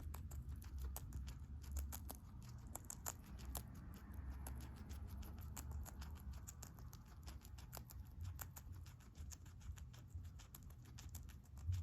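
Guinea pig chewing and crunching food: a fast, irregular run of small crisp clicks, several a second, over a low rumble.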